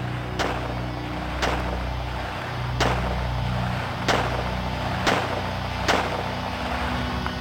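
Six pistol shots from a Rock Island Armory 1911 in .45 ACP, spaced roughly a second apart in slow fire, over a steady low drone.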